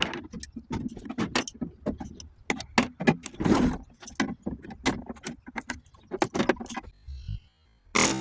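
Irregular sharp metal clicks, snips and clattering as wire is cut out of a battery charger's insides with hand tools. The clicking stops about seven seconds in, and a louder sound starts just before the end.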